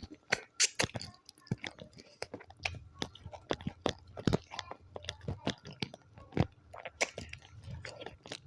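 Close-miked chewing and biting of food, with many sharp, irregular crunches and wet mouth clicks.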